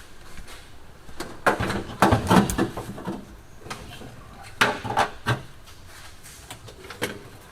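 Knocks and clatter of a car's dashboard being handled and worked into place inside the cabin, in two bunches of bumps about a second and a half in and about five seconds in, with a lone knock near the end.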